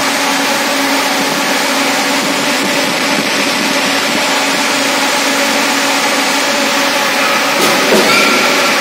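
Loud, steady running noise of forge-shop machinery, then a single blow of a drop forging hammer on the hot workpiece near the end.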